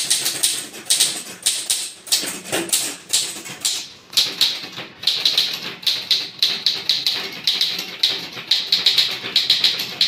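Godrej Prima manual typewriter being typed on at a quick pace: a rapid run of key and type-bar strikes, several a second, with short pauses about two and four seconds in.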